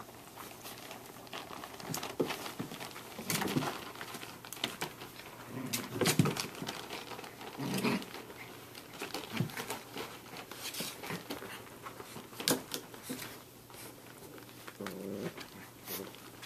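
Samoyed puppies play-fighting: scuffling and padding about on blankets and bumping a plastic toy slide, with a few brief puppy growls mixed in.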